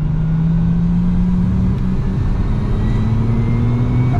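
Nissan 350Z's 3.5-litre V6 pulling under acceleration, its engine note rising steadily with a brief dip about two seconds in, over low road rumble.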